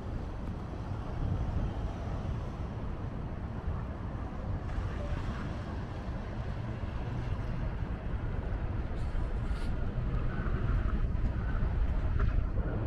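Outdoor city street ambience: a steady low rumble, getting a little louder in the last few seconds, with faint higher sounds near the end.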